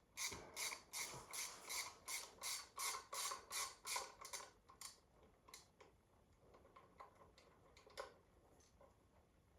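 Hand ratchet wrench clicking in a steady rhythm of about three clicks a second, then slowing to a few scattered clicks as the fastener comes loose.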